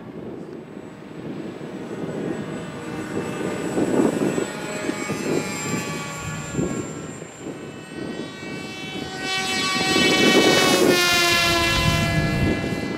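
Electric RC airplanes' motors and propellers whining in flight, with two louder passes overhead: one about four seconds in and a louder one around ten seconds in. The whine drops in pitch as the second pass goes by.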